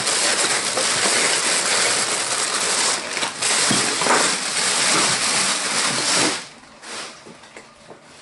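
Loud rustling and crinkling of a plastic carrier bag as hands rummage through it for tools, stopping suddenly about six seconds in.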